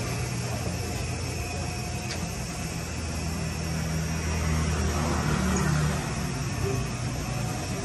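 Low steady hum of a running engine over background noise, louder for a couple of seconds about five seconds in.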